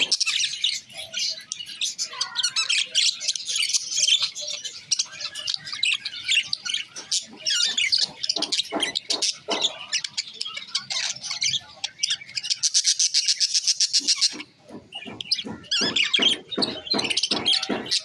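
Budgerigars chattering and warbling: a dense run of quick chirps, squawks and clicks, with a fast, even rattling trill about two-thirds of the way through and a short pause after it.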